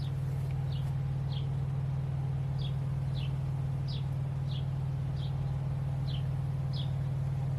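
A songbird chirping over and over, short falling chirps about every half second, over a steady low engine hum.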